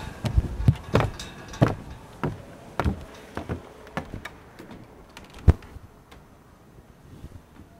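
Footsteps climbing wooden porch stairs: a run of hollow thuds about every half second, with one sharp thud about five and a half seconds in.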